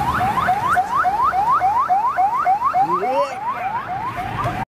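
Electronic vehicle warning tone: a rapid run of rising whoops, about four a second, that cuts off suddenly near the end.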